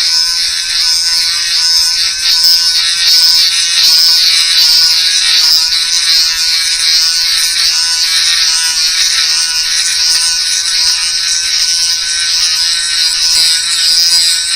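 Small high-speed electric grinding tool running steadily with a high whine as it grinds away the plastic of an old fishing lure to reshape it.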